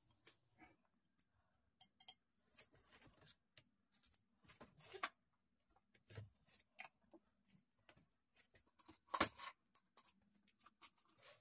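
Near silence with scattered faint small clicks and taps from objects being handled, a slightly louder pair of clicks about nine seconds in.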